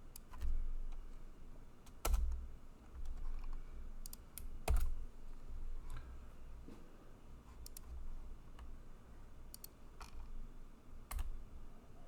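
Computer keyboard being typed on in scattered, irregular keystrokes, some sharper clicks standing out and a few carrying a dull low thud.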